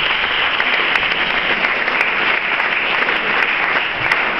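An audience applauding: many people clapping together, steady and loud.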